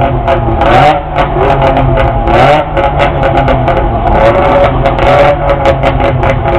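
Several Melkus RS 1000 sports cars with Wartburg three-cylinder two-stroke engines idling and being revved in a queue. The engine pitch rises and falls several times, with sharp crackles throughout.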